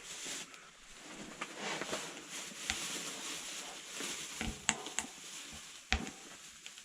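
Hands handling fishing tackle while re-baiting a hook: scattered light clicks and small knocks over a faint rustle.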